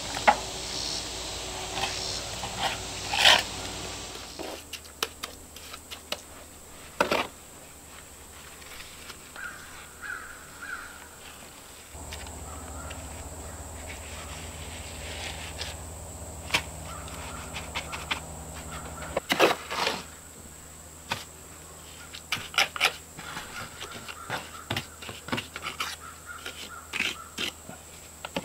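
Trowel scraping and tapping wet mortar, with stones knocking as they are set into a stone veneer wall: scattered short clicks and scrapes with a few sharper knocks. A bird calls a few times in the background.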